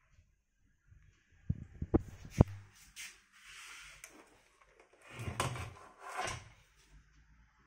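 Handling noise: a few sharp knocks about two seconds in, the last the loudest, then two stretches of rubbing and brushing.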